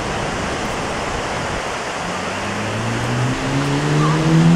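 Ocean surf breaking and washing on the beach, a steady rushing wash. From about halfway through, an engine comes in underneath, rising slowly in pitch and getting louder toward the end.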